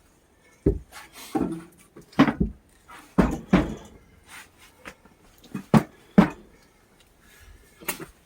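Irregular knocks and thumps, about eight of them spaced unevenly, some with a short dull ring after them.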